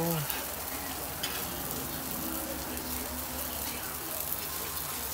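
Pupusas sizzling on a hot flat-top griddle, a steady crackling fry.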